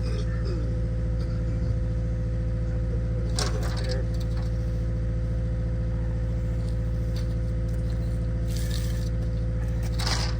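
Skid steer's diesel engine running steadily at constant speed, with a short metallic rattle about three seconds in and another near the end.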